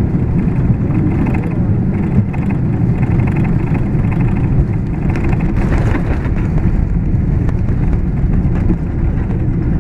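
Airbus A330 landing roll heard from inside the cabin: a loud, steady low rumble of the wheels on the runway and the engines.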